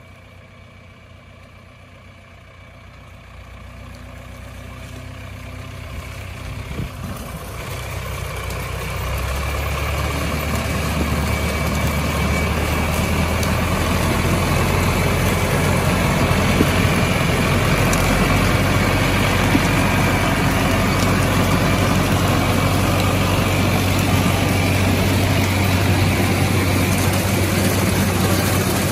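John Deere tractor running steadily while pulling a one-row corn picker through standing corn, with the picker's mechanism clattering. The engine and machinery noise grows louder over the first dozen seconds as it approaches and stays loud and steady once it is alongside.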